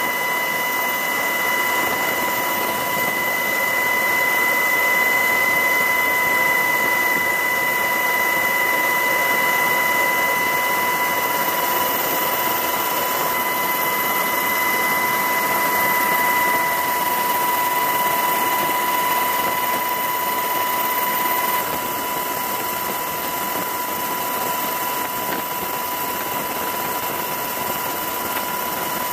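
Helicopter turbine engines running at flight power: a steady whine of high tones over a constant rushing noise, a little quieter about two-thirds of the way through.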